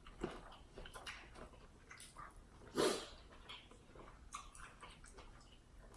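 Quiet mouth sounds of someone eating seafood boil: soft chewing and wet clicks of the lips and tongue, with one louder smack or crunch about three seconds in.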